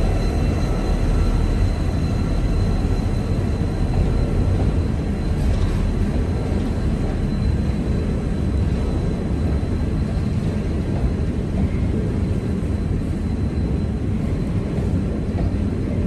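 Grain train's hopper wagons rolling past close by: a steady rumble of wheels on rail. A few steady tones from the departing locomotives fade out over the first few seconds.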